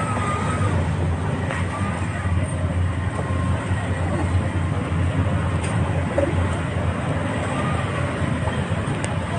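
Busy street ambience: a steady low rumble of traffic, with faint voices now and then.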